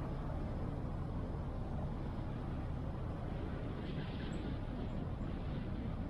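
Car driving, a steady low rumble of engine and tyre noise, with a faint brief hiss about four seconds in.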